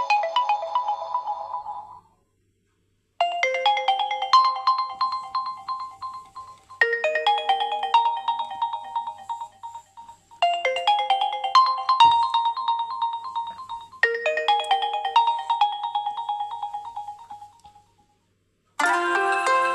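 realme Note 60 stock ringtone: a short melody of quick, bright notes, looped four times about every three and a half seconds. Another tone fades out about two seconds in, and a new one starts near the end.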